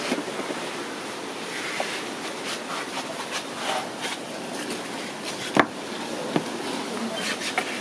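Plastic cage tray being handled and tipped out, with scattered scrapes and light knocks and one sharper knock about five and a half seconds in.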